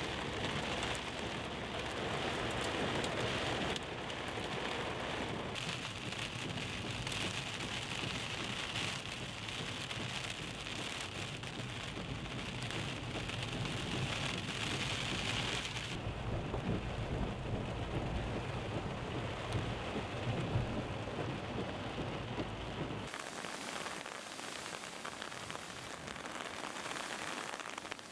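Heavy rain, heard in several clips cut together, the first part from inside a car with rain on the windscreen, over a steady low rumble. The sound changes abruptly at each cut. Late on the low rumble drops away, leaving only the hiss of rain.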